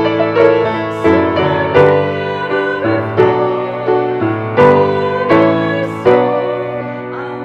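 Hymn sung by two women to grand piano accompaniment, the piano striking chords every second or so under the voices.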